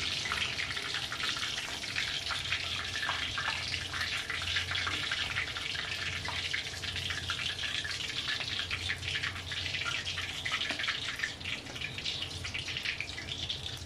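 Chicken leg quarters deep-frying in oil in a stainless steel wok: a steady crackling sizzle full of small pops, with a faint low hum underneath.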